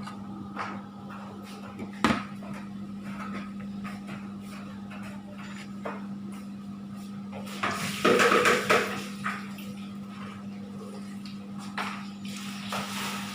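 Kitchen handling sounds: dishes and utensils knocking now and then over a steady low hum, with a louder stretch of clattering about eight seconds in.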